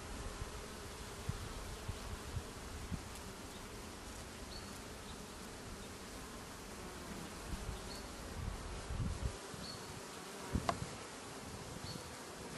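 Honeybees buzzing at the hive entrance as they land and take off, a steady hum of wings. Irregular low bumps run under it, and a sharp click comes near the end.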